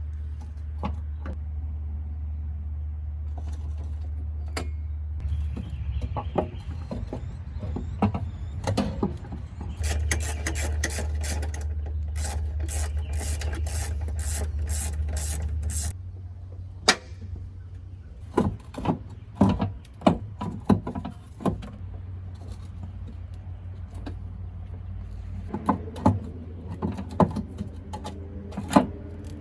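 Scraping, clicking and metallic knocks of a C5 Corvette's cast-aluminium oil pan being wiggled and worked down past the chassis, with a quick run of rapid strokes in the middle and heavier knocks in the second half, over a steady low hum.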